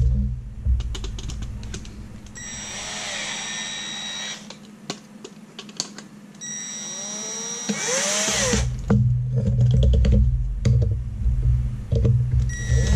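Cordless drill drilling into a metal bracket. The motor runs in spells with a steady whine, stops briefly with a few clicks around the middle, then runs louder and lower for the last few seconds.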